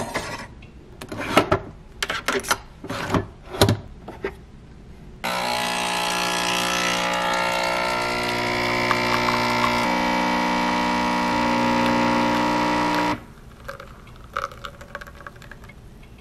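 Capsule coffee machine brewing: a few clicks and knocks as the mug is set in place, then the machine's pump runs with a steady buzz for about eight seconds while coffee pours into the mug, cutting off abruptly. A few faint clicks follow.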